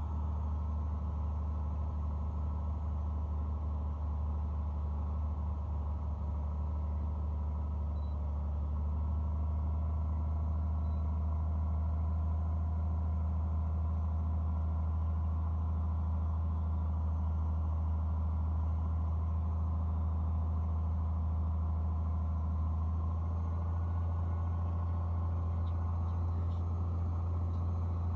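Piper Dakota's Lycoming O-540 six-cylinder engine and propeller droning steadily, heard inside the cabin on final approach. The drone grows slightly louder about a third of the way in.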